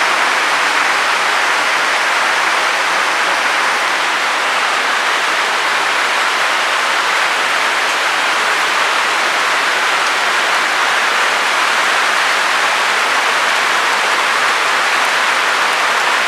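Heavy downpour of rain and hail on roofs, a loud, even, unbroken hiss with no separate strikes standing out.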